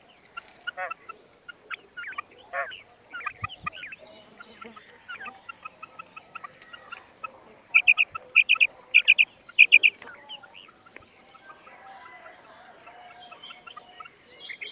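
Female quail calling: short, sharp notes in quick clusters, loudest in a run of about five groups near the middle, with fainter scattered notes around them.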